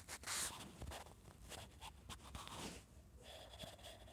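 Soft fingertip rubs and taps on a phone touchscreen, picked up close by the phone's own microphone: two brief swishes and a few light clicks.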